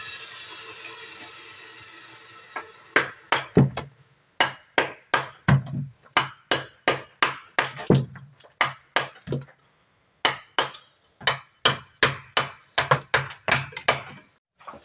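Mallet driving a steel chisel into a stone block: a long run of sharp, ringing strikes, about two a second, with a short pause near the middle, as waste stone is knocked off in roughing out. A fading mechanical whine dies away before the first strikes.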